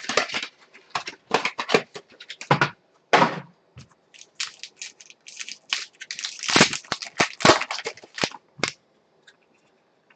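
Foil trading-card pack crinkling and being torn open by hand: irregular crackles and sharp clicks, densest about six to eight seconds in.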